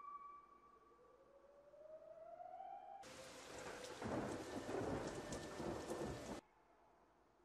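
A faint electronic tone gliding upward, then about three seconds in a sudden burst of rain-like hiss with a low rumble and crackles. The burst cuts off abruptly after about three and a half seconds, like a spliced-in thunderstorm sound effect.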